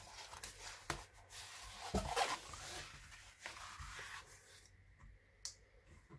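Diamond painting canvas with its plastic release film rustling and crinkling as it is handled and pressed flat on a table, with a few short, soft knocks spread through.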